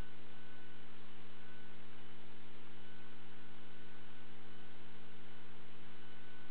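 Steady electrical hum, a set of constant low tones over an even hiss, unchanging throughout with no distinct event.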